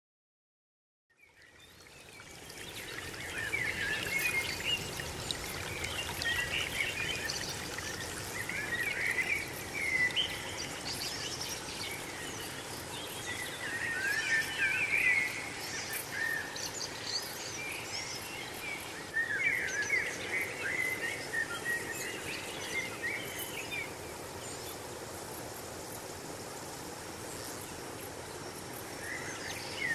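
Birdsong over a steady outdoor background hiss: phrases of chirping, warbling calls come every few seconds, fading in over the first two seconds.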